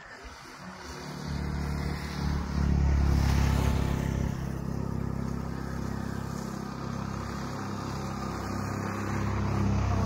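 A motor vehicle's engine running, growing louder over the first three seconds and then holding steady.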